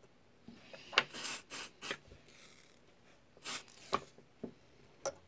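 A screwdriver tip pressing and scraping a wire down onto a solder pad on a circuit board while a soldering iron reheats the joint: short scrapes and rubs with a few sharp clicks, bunched about a second in and again past the middle, with one last click near the end.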